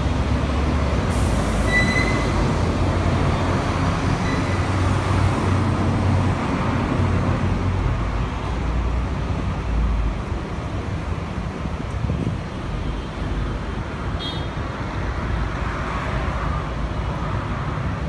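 Steady noise of a busy multi-lane road heard from above, with a heavy low engine rumble from a bus passing beneath that eases off about halfway through.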